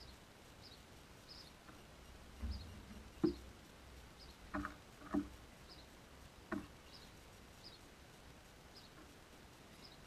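House sparrows pecking and hopping among seed on a wooden bench seat: five sharp taps and knocks in the middle few seconds. A faint high chirp repeats about twice a second throughout.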